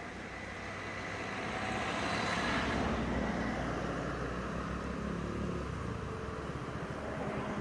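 A motor vehicle passing: a rumble that swells to its loudest about three seconds in and then slowly fades.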